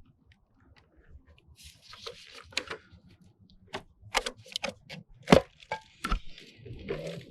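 Scattered sharp clicks and knocks with a short rustle, as a motorcycle's ECU is worked up and out of its mount by hand.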